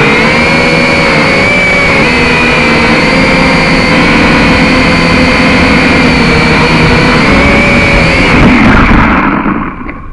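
Quadcopter drone's motors and propellers whining steadily, the pitch wavering slightly, then spinning down and dying away about nine seconds in.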